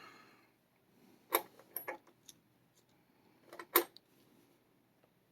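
A few light clicks and taps of small metal lock parts (pin tumbler pins and the lock's plug) being handled and set down on a hard surface. Two sharper clicks come about a second and a half in and again near the four-second mark.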